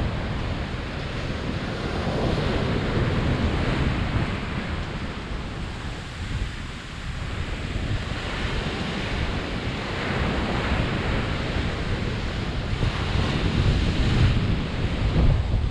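Surf breaking and washing up a sandy beach, swelling louder with each wave, with wind buffeting the microphone.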